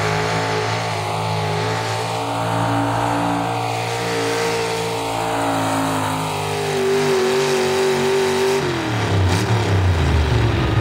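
Pickup truck engine held at high revs while pulling a weight-transfer sled, its steady note sagging slowly as the load builds. Near the end the revs drop away sharply as the truck comes to a stop.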